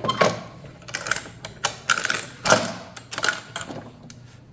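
Irregular sharp clicks and clacks, about seven spread over a few seconds, from a toy claw machine being handled and operated.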